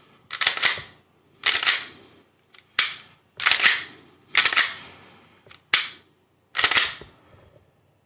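Slide and trigger of a Glock 17-pattern pistol with a 3D-printed frame being worked over and over by hand: a series of sharp clacks, about seven in eight seconds, some in quick pairs. This is a test of the trigger reset, which on this frame catches only some of the time.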